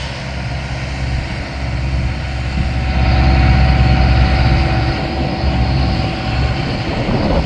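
Diesel skid steer engine running and working, growing louder about three seconds in as a thin steady whine joins.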